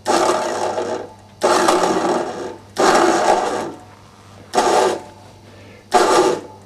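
Wire tensile-testing rig being worked up in repeated strokes, straining a length of high tensile fence wire. There are five mechanical bursts with short pauses between them: the first three last about a second each and the last two are shorter.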